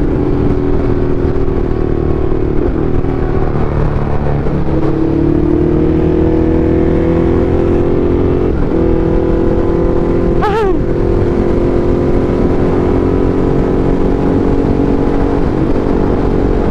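Motorcycle engine running at a steady cruise, its pitch creeping slowly up and down, over a heavy wind rumble. A brief wavering tone sounds about ten seconds in.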